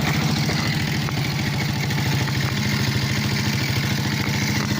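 Small single-cylinder engine of a 110 cc quad (ATV) idling steadily with an even, quick pulsing beat. It runs smoothly after its carburetor was cleaned and an inline fuel filter fitted.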